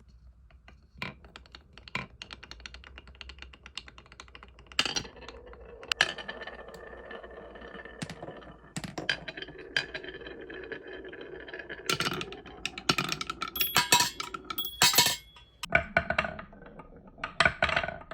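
Marbles rolling and clacking down a wooden marble-run track: a steady rumble full of small clicks, with sharper knocks every second or two. Toward the end, marbles strike the metal chimes of a chime slope, and several bright ringing notes sound.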